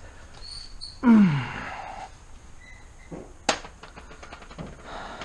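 A man's falling sigh about a second in, then a single sharp click and a few faint clicks of handling.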